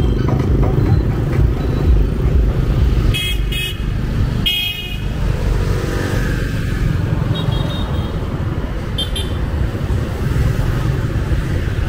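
Heavy street traffic of cars and motorbikes running steadily, with several short horn beeps; the loudest is about four and a half seconds in.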